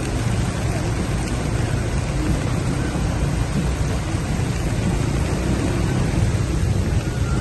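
Heavy rain falling, a steady dense hiss with a low rumble underneath.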